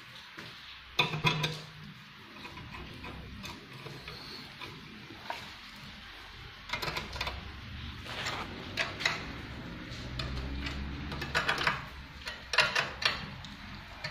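Small metal parts of a sewing machine thread stand clinking and rattling as the rods, washers and nuts are handled and screwed together: irregular clicks and knocks, one louder knock about a second in and a run of them in the second half.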